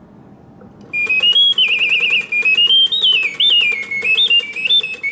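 Mechanical singing bird of a vintage Reuge singing birdcage whistling its song on the pause setting: a single piping whistle, starting about a second in, that trills rapidly and jumps up and down in pitch in short phrases.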